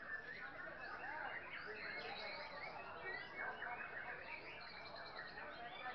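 Many caged white-rumped shamas (murai batu) singing at once in a songbird contest: a dense tangle of overlapping whistles and chirps, rising and falling.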